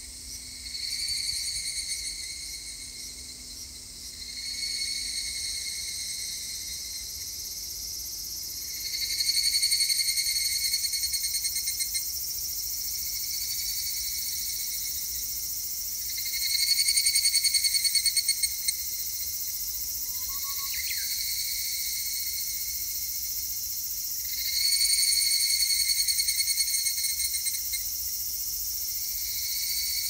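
A chorus of higurashi (evening cicadas, Tanna japonensis) singing their ringing, rapidly repeated 'kana-kana-kana' song. Three louder phrases from a nearer cicada each last a few seconds and then fade.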